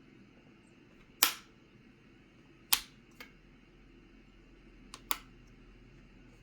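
Sharp plastic clicks from a mechanical keyboard being handled: one loud click, then a click with a fainter echo-click just after, then a faint click followed by a loud one.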